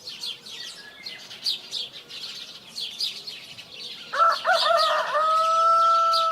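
Small birds chirping throughout; about four seconds in a rooster crows once, a long cock-a-doodle-doo with a wavering start and a long held final note.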